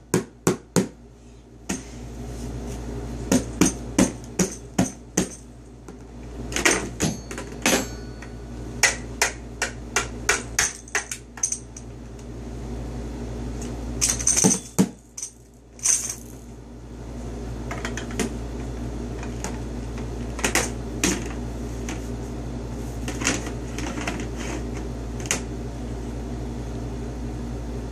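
Toy drums struck with a single drumstick by a toddler: irregular clusters of sharp taps, growing sparser in the second half, over a steady low hum.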